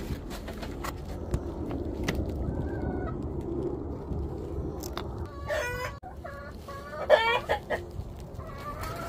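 Rooster giving a run of loud, pulsing clucking calls in the second half, after a few seconds of rustling against the coop's tarp. It is a rooster guarding a hen's egg nest, and its call is different from its usual one.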